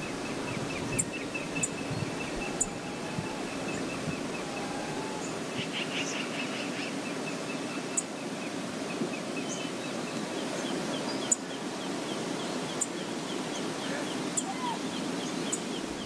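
Steady sound of the river running, with small birds calling over it: a fast, high chirping trill repeated through much of it and scattered sharp, high chip notes.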